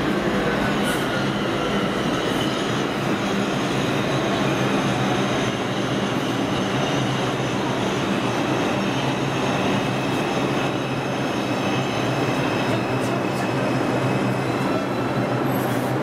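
Bombardier R142 subway train running on elevated track: a steady, loud rolling rumble of steel wheels on rail, with several thin high steady tones above it, wheel squeal.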